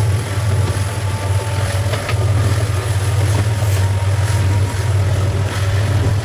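Steady low hum of a WDP4 diesel locomotive's EMD two-stroke V16 engine under way, heard from the coach coupled behind it, with a few faint clicks over it.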